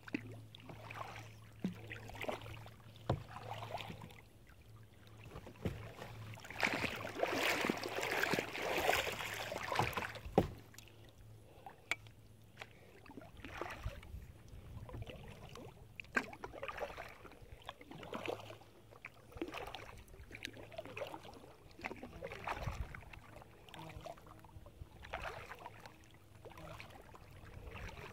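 Kayak paddle strokes in calm lake water: the blades dip and splash with dripping, irregularly every second or two, with a longer, louder stretch of splashing and water noise from about seven to ten seconds in.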